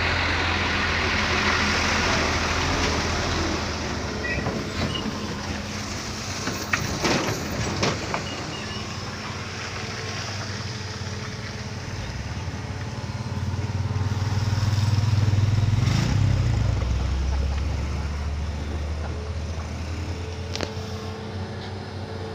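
Motor vehicle engine running with road noise, a steady low hum that swells louder about two-thirds of the way through, with a few short knocks about a third in.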